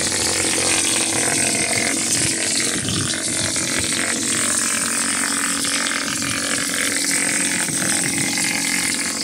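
Air-fed gypsum plaster spray gun blasting plaster onto a wall: a steady hiss of compressed air with an uneven low rumble from the plaster spattering out of the nozzle, over a faint steady machine hum.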